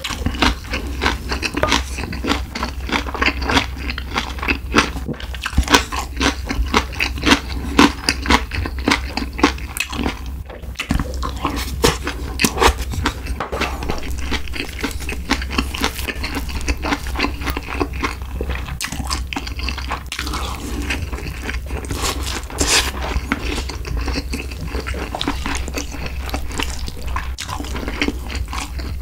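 Close-miked chewing of spicy stir-fried pork and rice: wet, crackly mouth sounds and bites, over a steady low hum.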